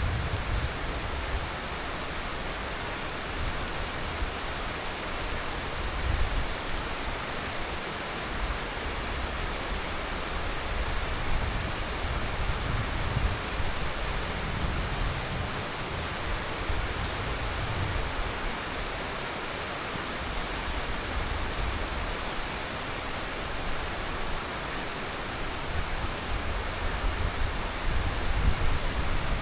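Heavy tropical monsoon rain falling steadily in an even hiss, with a low rumble that swells and fades a few times.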